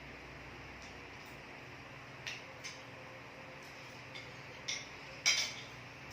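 Cutlery lightly clinking against a plate, about five soft clicks spread over the last few seconds, the loudest near the end, over a faint steady hiss.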